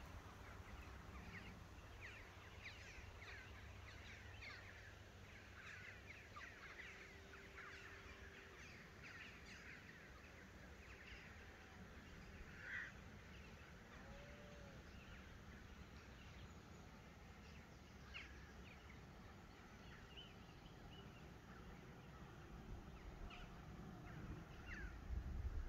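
Faint birdsong: many small birds chirping and calling over a low steady rumble, with one brighter call about halfway through and louder calls near the end.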